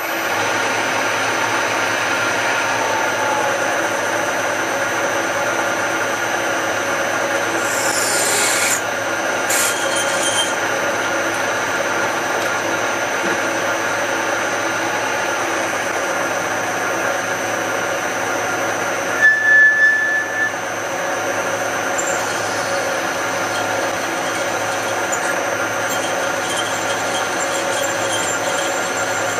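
Machine spindle running steadily while a number 4 twist drill slowly cuts into stainless steel. A short high squeal comes about two-thirds of the way through.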